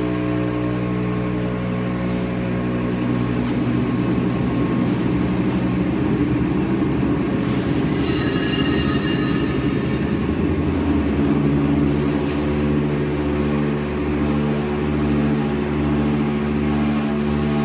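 Hydraulic power unit of a loaded scissor lift running: a steady motor-and-pump hum with a rough, rattling noise through the middle stretch. A brief high whine comes about eight seconds in, and the hum's tone changes about eleven seconds in.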